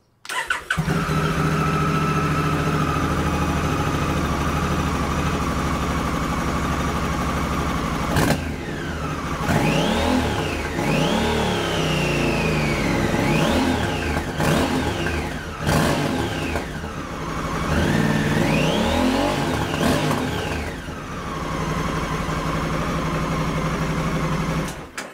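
Honda Africa Twin CRF1100's 1084 cc parallel-twin engine on its standard exhaust: it starts, idles steadily, is revved in a series of about six rising and falling blips, then settles back to idle and is switched off near the end.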